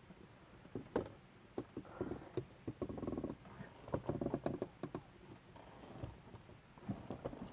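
Scattered clicks, knocks and rustling of small objects being handled, with a short rasping buzz about three seconds in.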